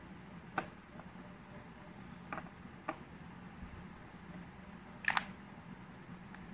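Small plastic clicks as the Edifier TWS1 earbuds are set into their charging case, then a louder double click about five seconds in as the case lid snaps shut. A faint steady hum runs underneath.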